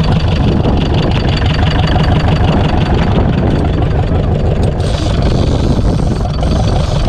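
Fishing boat's diesel engine running steadily at close range, a loud continuous drone. A brighter hiss of wind and water joins it about five seconds in.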